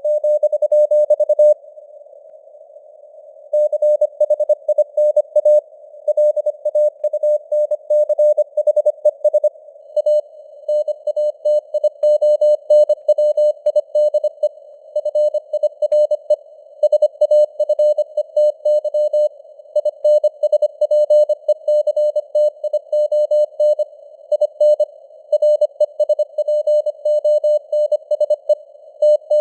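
Morse code (CW) sent at 25 words per minute: a single steady-pitched tone keyed in rapid dots and dashes over simulated radio band noise, with a pause of about two seconds between characters or words shortly after the start.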